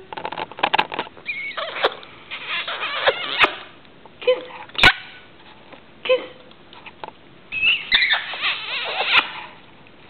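Rainbow lorikeet chattering in bursts of squeaky, quickly wavering chirps and clicks. One sharp click comes about five seconds in.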